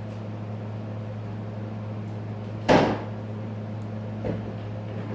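A sharp knock about two and a half seconds in and a softer one near the end, over a steady low hum.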